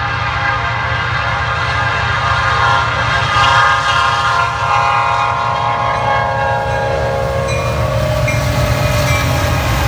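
Norfolk Southern freight train's diesel locomotive sounding its air horn on approach, a chord of several tones that drops in pitch as the locomotive comes by, over the low rumble of the diesel engines.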